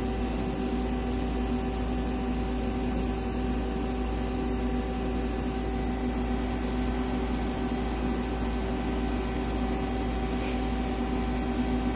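Hurco TMM 8 CNC lathe machining a part under flood coolant: a steady running hum with several held tones over the hiss of the coolant spray, smooth and quiet.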